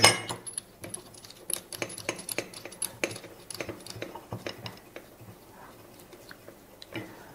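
Small metallic clicks and scrapes of a coaxial cable connector being fitted and screwed onto the current-clamp calibration fixture. A sharp click comes right at the start, the clicks are thick for the first four seconds or so, then they thin out.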